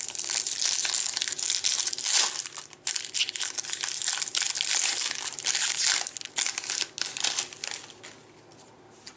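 Foil wrapper of a Bowman baseball card pack being torn and crinkled in the hands, a dense crackle that stops shortly before the end.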